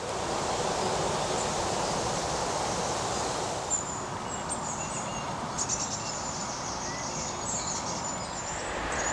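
Lakeside outdoor ambience: a steady rushing background with small birds chirping high over it from about four seconds in, including a quick run of chirps in the middle.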